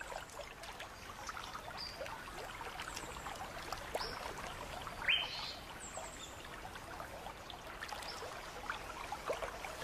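Creek water trickling and lapping gently, with a few short high bird chirps over it, one a quick rising call about five seconds in.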